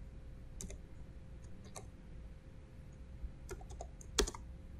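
A handful of separate computer keyboard keystrokes, faint, with the loudest click a little after four seconds in.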